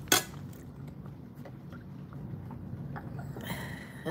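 A metal fork clinks sharply once against a ceramic dinner plate at the start, followed by soft chewing and a few faint utensil ticks over a low, steady background hum.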